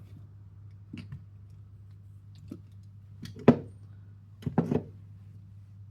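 Scattered clicks and knocks of small gun parts being handled and moved on a workbench, the loudest about three and a half seconds in and a quick pair soon after, over a steady low hum.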